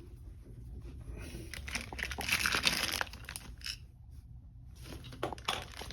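Crinkling and rustling as the replacement shower knob parts and their wrapping are handled, in dense bursts from about a second and a half in, a pause, then more near the end.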